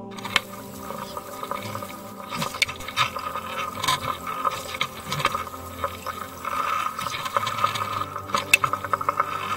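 Water rushing and bubbling around an underwater fishing camera lowered on a line, with irregular clicks and knocks and a faint steady whine.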